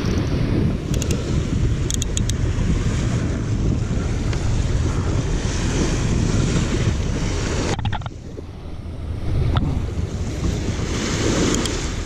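Wind buffeting the microphone over the wash of sea surf, with a few faint high ticks about two seconds in. The wind dips briefly near the end.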